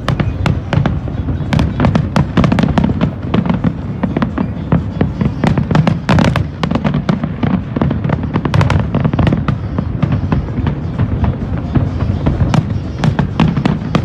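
Aerial fireworks going off in a dense barrage: many sharp cracks and bangs a second over a continuous low rumble of bursts.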